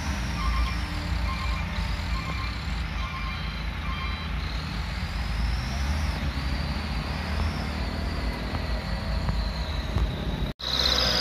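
Diesel truck engine pulling hard under load, a steady low rumble. The sound cuts out abruptly for a moment near the end.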